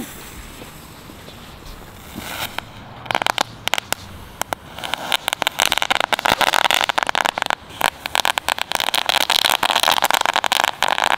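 Knetterkogels crackling-ball firework going off: after a few quiet seconds of burning fuse, scattered sharp pops begin about three seconds in and build into a dense, rapid crackling.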